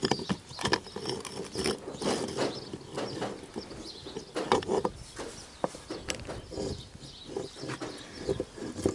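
Irregular clinks and knocks of truck air-compressor parts being handled and fitted together by hand during a rebuild.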